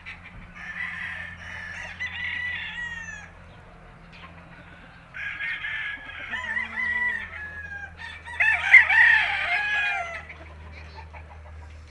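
Gamefowl roosters crowing: three long crows, one after another, the last the loudest.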